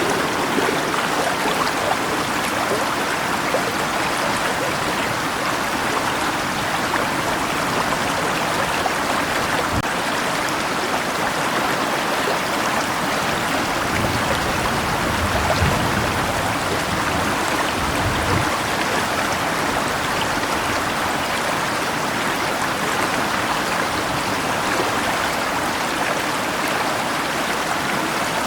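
Steady rushing of river water mixed with rain, an even hiss of water without a break. A brief low rumble rises a little past halfway.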